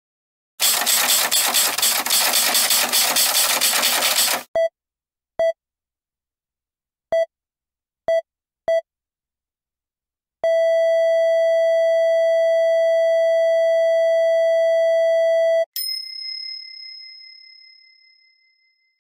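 Electronic sound effects: a harsh, fluttering hiss for about four seconds, then five short beeps at uneven spacing, one long steady beep of about five seconds, and a bell-like ding that rings and fades away.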